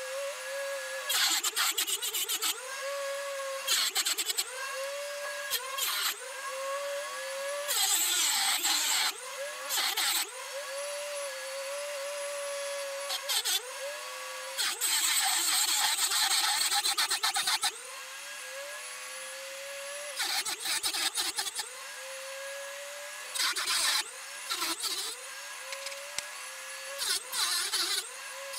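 A Dremel rotary tool's motor whines at high speed while its abrasive cut-off wheel grinds into a metal T-nut blank. Each time the wheel bites, the pitch sags and a harsh grinding noise comes in, then the pitch climbs back as the wheel is eased off. This repeats in many short passes, with one longer grind about midway.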